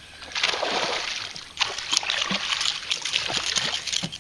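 A hooked largemouth bass splashing and thrashing at the water's surface as it is played to the boat. The splashing starts about half a second in and comes in a run of short, sharp splashes, with a harder one about a second and a half in.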